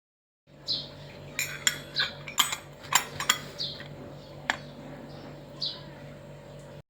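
Crockery and cutlery clinking: a quick run of light taps and clinks between about one and a half and three and a half seconds in, then a single click a second later, over a steady low hum.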